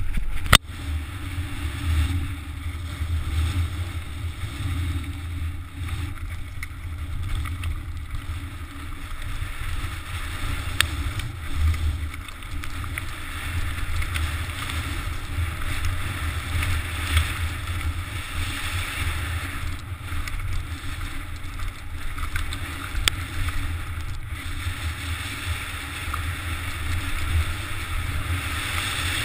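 Mountain bike descending a loose rocky track: tyres rattling and crunching over stones, with wind buffeting the camera's microphone as a steady low rumble. A few sharp knocks from the bike hitting rocks.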